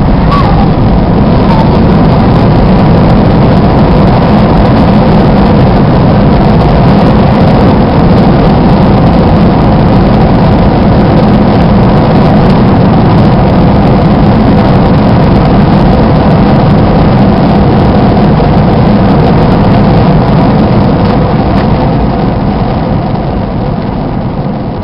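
Airbus A320 landing rollout heard from inside the cabin over the wing: a loud, steady rush of engine noise with a low rumble, typical of reverse thrust just after touchdown, easing off near the end as the aircraft slows.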